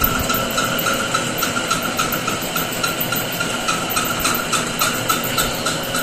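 Manual metal-turning lathe running steadily: a continuous machine hum with a regular pulsing whine, about four beats a second.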